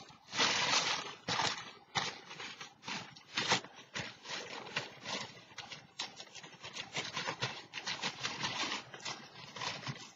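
Paper napkins rustling and crinkling as they are rummaged through and handled, in irregular bursts.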